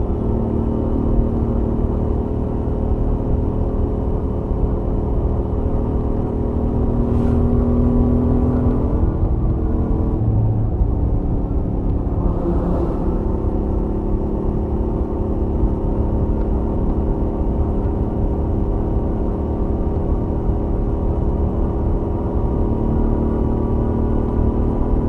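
Royal Enfield Interceptor 650's stock 648 cc parallel-twin engine and exhaust running steadily at highway cruising speed, heard on board. The engine note dips and shifts about nine seconds in, then settles again, and two brief rushes of hiss come through around seven and twelve seconds in.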